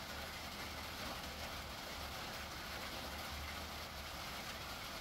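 Heavy rain falling steadily: an even hiss, with a low hum underneath.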